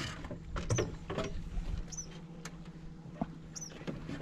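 Scattered light knocks and taps on an aluminum Grumman canoe's hull as a person steps out of the bow onto shore rocks, with the low slosh of water around the hull. A short, high chirp that drops in pitch repeats about every second and a half.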